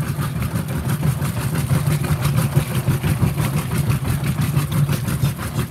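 Whirlpool WTW5300SQ0 top-load washing machine in high agitation on its pre-wash setting: a steady motor hum with a regular chugging pulse that sounds like a choo-choo train.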